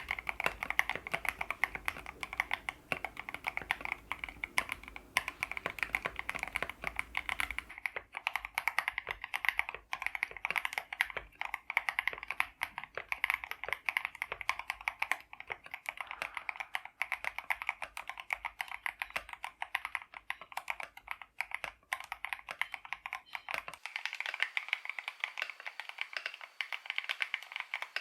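Rapid, continuous typing on a mechanical keyboard fitted with Akko CS Crystal switches, a steady stream of keystroke clacks.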